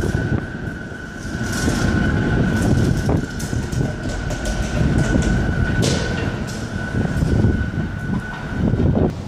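A New York City subway train rumbling through the tunnel away from the platform, with a steady high-pitched whine and a few brief rail squeals and clatters. The sound cuts off suddenly near the end.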